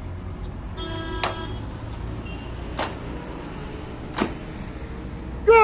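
A steady low outdoor rumble with three sharp knocks about a second and a half apart. A loud, held, pitched tone begins right at the very end.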